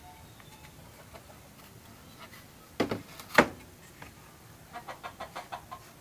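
Two sharp wooden knocks about half a second apart, then a quick run of light clicks and taps near the end, as a small wooden compartment box frame is handled and set down on a wooden workbench.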